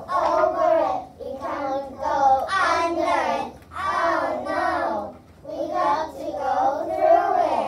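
A group of young children chanting a rhyme together in a sing-song voice, in short phrases with brief pauses between them.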